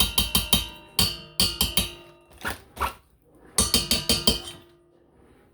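A utensil rapping quickly against a ringing mixing bowl, in three short runs of raps, knocking the last of the cream cheese off into the bowl.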